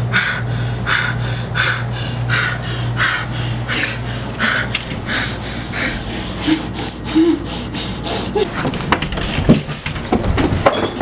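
A man panting hard, quick breaths about one and a half times a second, over a low steady hum that stops about halfway through. A few knocks and clicks follow near the end.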